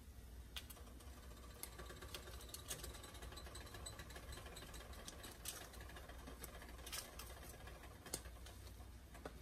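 A pot of chicken broth boiling, heard faintly as irregular small pops and ticks, over a low steady hum.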